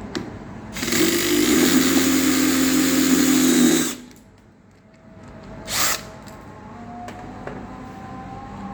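A handheld power tool runs at a steady pitch for about three seconds, working on a Toyota ignition lock cylinder to remove its lock parts. A second, much shorter burst of noise follows a couple of seconds later.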